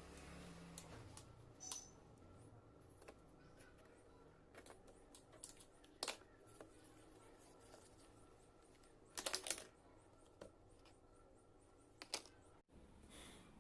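Scattered light clicks and taps of small plastic toy pieces being handled, with a short cluster of clicks about nine seconds in.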